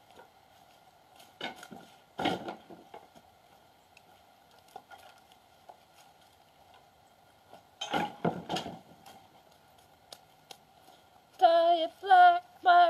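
Kindling being chopped on a chopping block: sharp chops about a second and a half and two seconds in, then a quick run of three blows around eight seconds. Near the end a woman starts singing.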